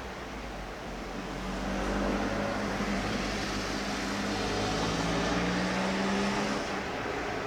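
Electric passenger train passing, its traction motors giving a humming tone over the rolling rumble; the hum starts about a second in and stops shortly before the end.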